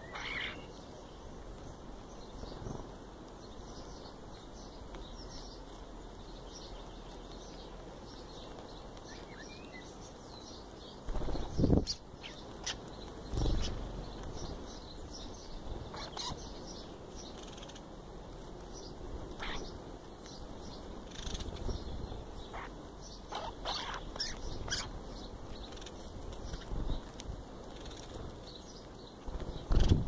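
Small birds feeding right beside the microphone: scattered short high chirps throughout, with a few loud close bursts of rustling and flapping as the birds move about. The loudest come about eleven seconds in and again just before the end.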